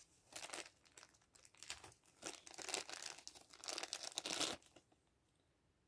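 Thin clear plastic bag crinkling as it is handled and pulled open, in several bursts over about four seconds, then stopping.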